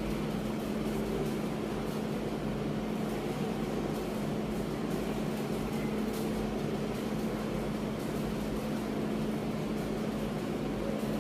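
A steady machine hum with one constant low tone over a background hiss, unchanging throughout.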